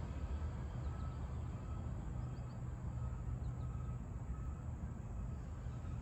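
Steady low outdoor rumble, with a few faint, short bird chirps now and then.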